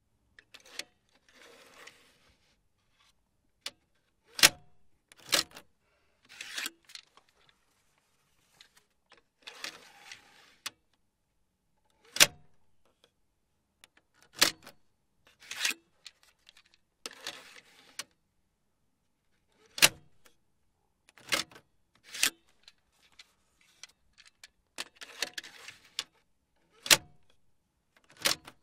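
Cassette tape repeatedly pushed into and ejected from a car tape deck: short sliding, rustling scrapes of the tape in the slot and sharp mechanical clicks of the deck's mechanism latching and releasing, with short pauses between.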